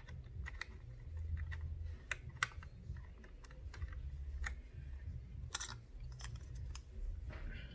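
Irregular light clicks and taps of a laptop RAM module being pushed at its memory slot and handled against the open laptop's board, with a few sharper clicks. The module will not seat: it is too wide for the slot.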